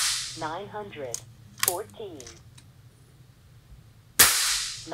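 A .30 calibre FX Wildcat MKIII PCP air rifle fires a test shot over a chronograph about four seconds in: a sharp crack followed by a hiss that fades within half a second. The tail of the previous shot dies away at the start, and a few light clicks and short pitched chirps fall between the two shots.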